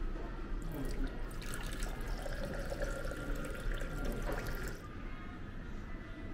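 Water running from a drink dispenser's spigot into a small glass. It pours for about four seconds and stops about five seconds in.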